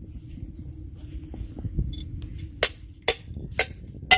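Digging a starting hole with a long-handled hand auger (barma) in field soil: a steady low rumble, then four sharp metallic clinks about half a second apart in the second half, the last the loudest.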